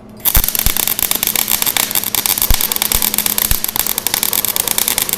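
Wire-feed welder arc starting about a third of a second in and running with a choppy, rough crackle that sounds like a machine gun, with a few heavier thumps: the sign of wire feed speed set too high.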